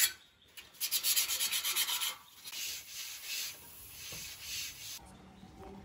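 Fast back-and-forth rasping of hand sanding on a steel sawmill frame, about eight strokes a second. Near the two-second mark it gives way to softer hissing in short bursts from a compressed-air spray gun spraying paint.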